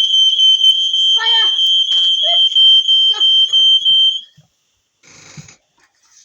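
Household smoke alarm sounding during a test: a loud, steady, high-pitched tone that cuts off about four seconds in.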